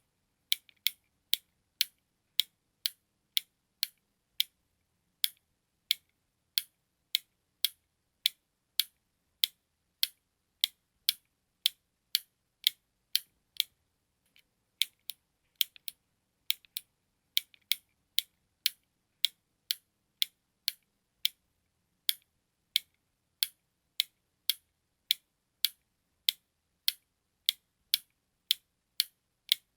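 Button clicking over and over: short, sharp, high clicks about one to two a second at an uneven pace, some in quick pairs.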